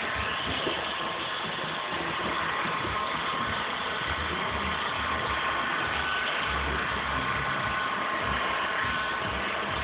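Handheld electric heat gun running steadily, a fan-driven rush of hot air with a faint steady whine, as it heats window tint film to shrink it onto a car's rear glass.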